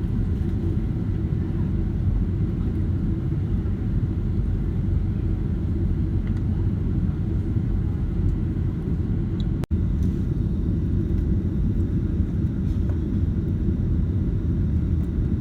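Steady low rumble of a Boeing 767-300ER's cabin in flight, the noise of its jet engines and airflow. The sound drops out for an instant about ten seconds in.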